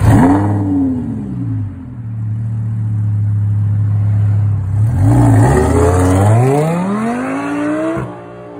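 Lamborghini Huracán's V10 engine blipped sharply once and falling back to a steady idle. It then revs up in one long rising pull as the car accelerates away, and cuts off sharply near the end.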